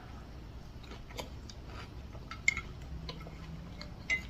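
A few light, sharp clicks of eating utensils against dishes during a meal, over a faint steady low hum.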